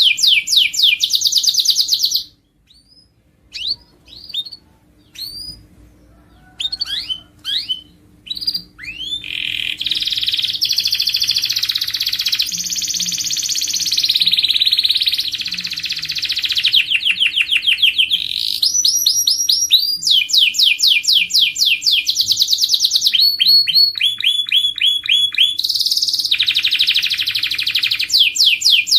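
Domestic canary singing: long runs of rapid repeated trilled notes that change speed and pitch from phrase to phrase. The song breaks off about two seconds in, gives way to scattered single chirps, and resumes about nine seconds in.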